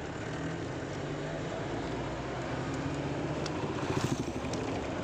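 Engine and road noise of a jeep-type vehicle driving along a paved road, heard from on board: a steady engine hum under rushing noise, with a brief louder flurry about four seconds in.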